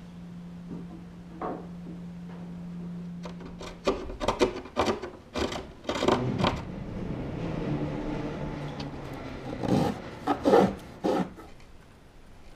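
A hand tool shaving and rasping wood while a double bass's bass bar is shaped: a series of quick scraping strokes, a few seconds of steady scraping, then another short run of strokes. A low steady hum sounds underneath for the first four seconds and then stops.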